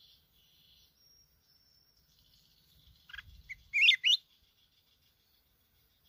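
Red-whiskered bulbul calling: a short burst of loud, sharply rising chirps about three to four seconds in, after faint, thin bird chatter.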